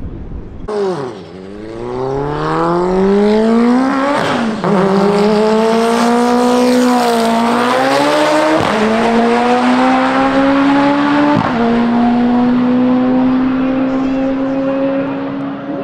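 Race car engine at full throttle, accelerating hard through the gears: its pitch climbs, drops sharply at three upshifts about four, eight and a half and eleven seconds in, then climbs again.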